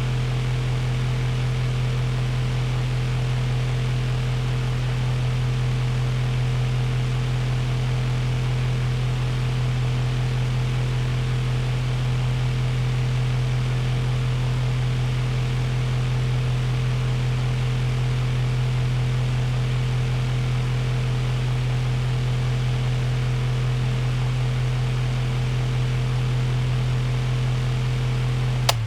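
Electric fan running at a steady speed: a constant low motor hum under an even rush of air. Near the end it is switched off with a click and the hum begins to wind down.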